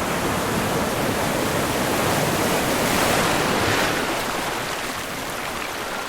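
Sea surf: a wave washing in, swelling to its loudest about halfway through and then receding.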